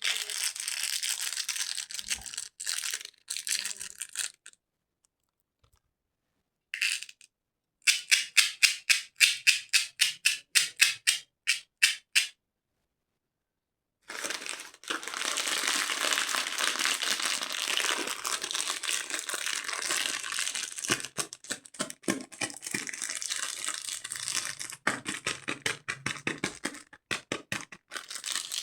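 Candy being crinkled and crushed: runs of quick, crisp crackling strokes, several a second, broken twice by a couple of seconds of silence.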